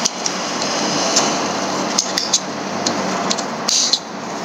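Light clicks and taps of a smartwatch charging cable and its plastic packaging being handled, with a brief rustle near the end, over a steady low hum.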